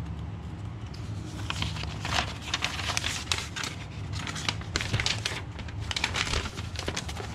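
Paper and packaging rustling and crinkling as an instruction manual is handled over a box packed in bubble wrap, a dense run of crackly rustles starting about a second and a half in and easing off near the end, over a steady low hum.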